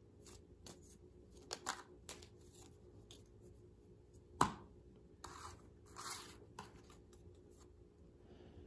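Playing cards being handled and drawn from the deck: scattered soft clicks and short card-on-card rustles, with one sharp tap about four and a half seconds in.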